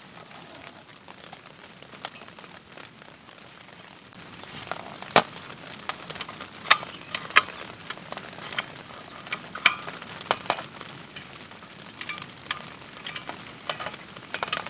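Small folding gas camping stove being unpacked and set up: its metal legs and pot supports are swung open and snapped into place, giving a series of sharp metallic clicks and clinks from about four seconds in. Under it runs a steady hiss of rain on the tent.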